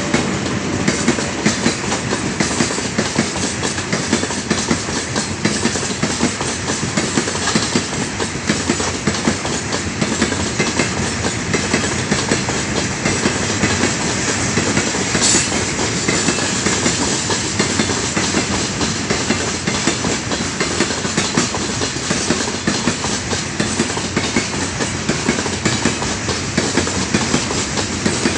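Heavy freight train of open-top gondola wagons rolling past close by, wheels clattering steadily over the rail joints. A brief high squeak comes about halfway through.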